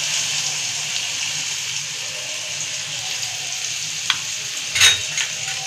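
Finely chopped onions sizzling in hot oil in a kadhai: a steady frying hiss. A sharp tick comes about four seconds in and a louder clink shortly after.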